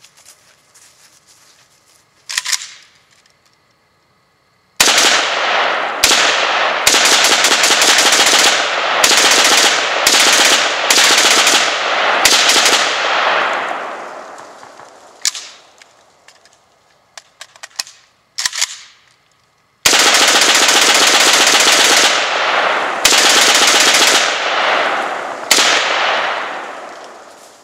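AK-47 rifle in 7.62×39mm bump-fired: semi-automatic shots come in rapid, irregular strings like full-auto fire. There is a lone shot about two seconds in, then a long run of bursts with brief breaks from about five seconds on, a few single shots, and a second long string from about twenty seconds. Each string dies away in a long echo.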